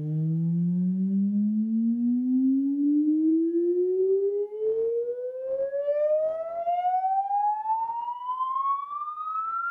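Veho M8 Bluetooth speaker playing a sine-wave sweep test tone that rises steadily in pitch from a low hum to a high whistle, with faint overtones above it and a little crackling about halfway through.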